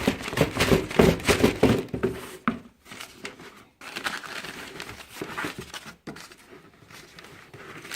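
Paper and cardboard crinkling and rustling as hands fumble with a shoebox and its contents, trying to get the shoes out one-handed. Busy and loud for the first two and a half seconds, then softer, scattered rustles.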